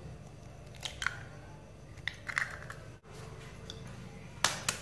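A metal spoon tapping an egg to crack it: a few short, sharp taps and the crackle of the shell breaking, with louder taps near the end.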